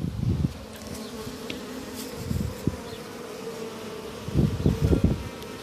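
Honey bees from an opened wall hive buzzing in a steady, dense hum, with a few low bumps about two seconds in and again near the end.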